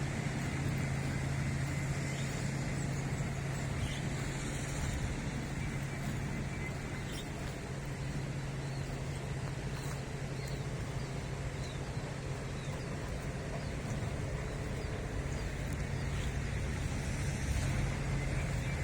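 An engine running steadily at idle, a constant low hum with no revving.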